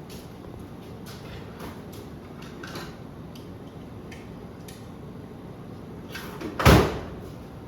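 Handling noise of plastic-wrapped model-plane parts: scattered faint crinkles and light taps, then one loud thump near the end.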